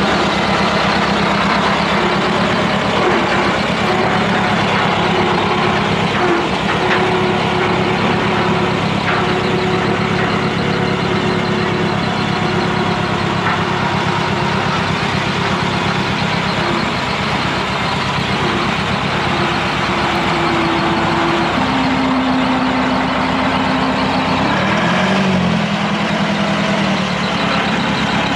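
Chamberlain R1250 tractor crane's Perkins diesel engine running steadily as the machine is driven, with the engine speed changing a few times near the end.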